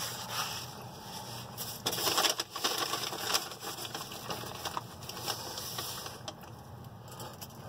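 Paper napkin and wrapper rustling and crumpling as they are handled, with a louder burst of crinkling about two seconds in, over a faint steady low hum.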